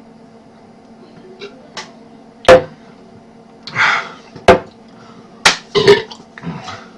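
A run of short, sharp impacts: four loud ones, the first about two and a half seconds in and the last two in quick succession near the end, with a few fainter ticks between them. There is also a brief rushing noise about four seconds in.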